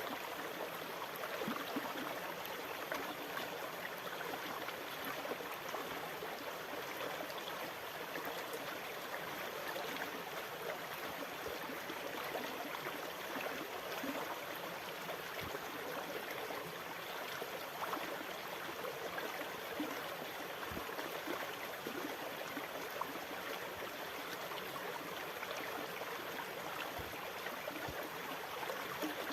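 Sea water washing steadily: an even, continuous rush of water with small splashing flickers and no distinct rise and fall of breaking waves.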